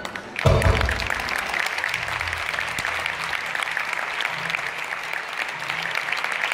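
Audience applauding; the clapping breaks out about half a second in and carries on steadily.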